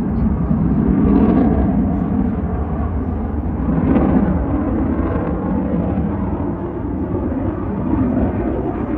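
Aircraft engine noise overhead: a loud, steady low rumble that swells slightly about one second and again about four seconds in.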